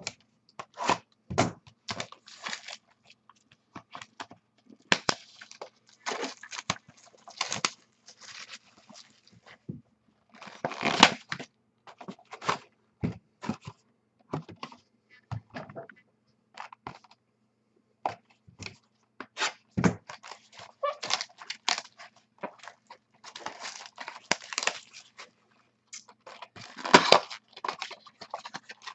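Hands tearing open and crinkling trading-card packaging: plastic wrap and foil packs ripped and handled in irregular bursts of crackling and rustling.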